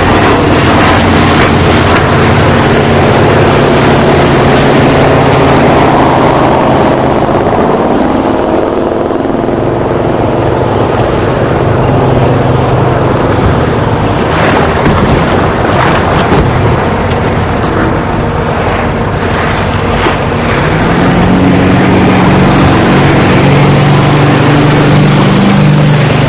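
Motorboat engines running at speed, a steady drone over rushing water and wind on the microphone. Near the end a wooden Boesch runabout closes in, and its engine note grows louder and rises in pitch as it passes close by.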